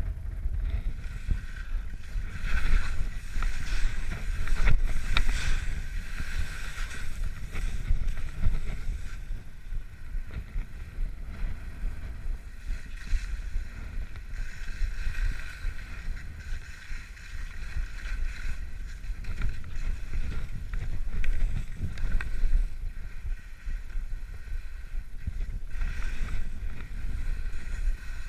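Wind and movement buffeting a body-mounted GoPro Hero3's microphone while skiing over snow: an uneven low rumble with a hiss that swells and fades.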